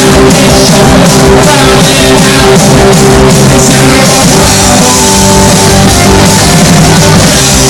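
Live punk rock band playing at full volume: distorted electric guitars over a pounding drum kit with crashing cymbals, recorded so loud the sound is saturated.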